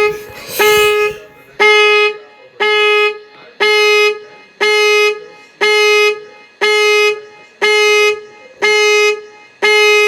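Nissan Rogue SV's horn sounding in the panic alarm pattern: loud short honks repeating evenly, about one a second.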